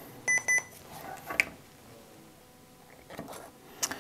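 Sapphire infusion pump giving two short electronic beeps in quick succession as it powers on. A few faint clicks follow later.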